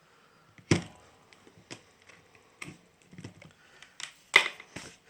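Handling noise: a series of irregular clicks and knocks of small hard objects, the loudest a little after four seconds in.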